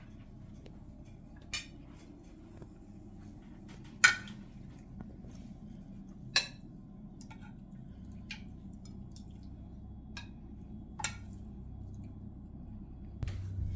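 Metal spoons clinking against china plates and dishes as food is served and eaten: about six short, sharp clinks, the loudest about four seconds in, over a low steady room hum.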